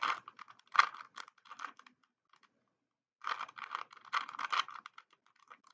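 Plastic 3x3 Rubik's cube being turned quickly by hand: rapid clicking and clacking of the layers, a pause of about a second in the middle, then another flurry of turns.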